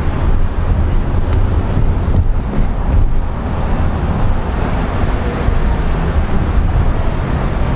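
Steady road noise of a moving car with wind rumbling on the microphone, a continuous low roar with no distinct events.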